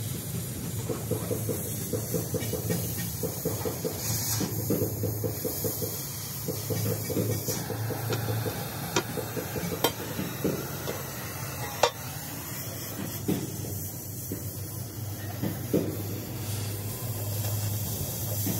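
Electric arc welding on a truck chassis: a steady crackling hiss over a low hum, with rapid ticking through the first half and three sharp knocks in the middle.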